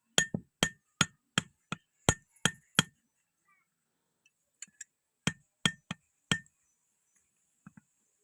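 Blacksmith's hammer striking steel on an anvil: a run of about nine blows, roughly three a second, then a pause and six more blows, the last ones spaced further apart. Each blow has a short metallic ring.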